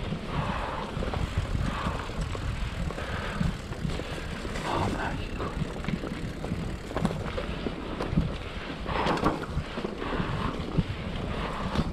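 Wind buffeting the microphone while a mountain bike rolls along a dirt trail, with rumbling tyres and scattered short knocks from the bike going over bumps.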